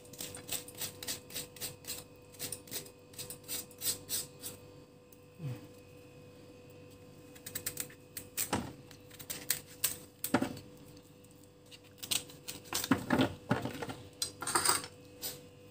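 Kitchen knife peeling and cutting raw pumpkin, the blade clicking and knocking against the plate and wooden cutting board. It starts with a quick run of small clicks, about three a second, for some five seconds, then after a pause comes a scatter of louder knocks and cuts from about eight seconds in.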